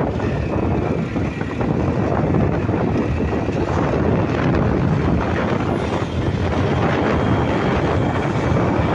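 Motorcycle riding at speed, with heavy wind buffeting on the microphone over the engine and road noise.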